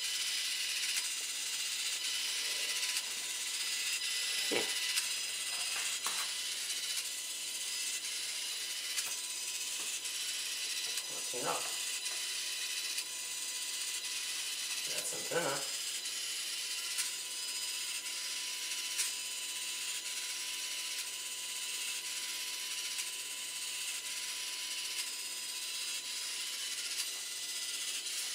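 Small servo gears in an E-flite Delta Ray One's wings cycling the elevons up and down while the GPS module searches for satellites: a faint mechanical gear chatter, broken by three short knocks as the foam plane is handled.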